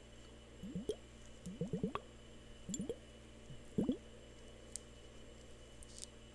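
Drops of water plopping into water, each a short bloop rising in pitch, coming in four quick clusters of one to five drops over the first four seconds, over a faint steady hum.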